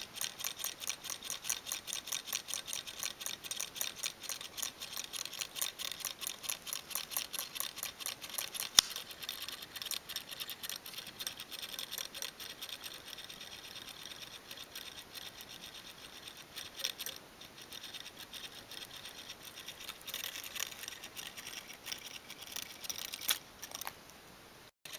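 Homemade simple electric motor: a wire coil spinning on paper-clip supports above a magnet. Its ends rattle in the clips as a fast, even buzz of clicks. The buzz weakens for a while midway, picks up again, and cuts off abruptly just before the end.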